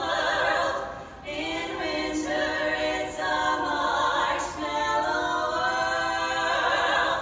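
A cappella vocal group singing in harmony, several voices holding long notes together. The singing stops about seven seconds in.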